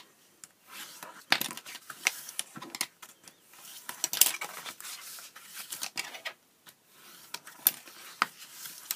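Pink cardstock being folded along its score lines and burnished flat: irregular papery scrapes and crackles of card creasing and being rubbed down, with a few sharper strokes.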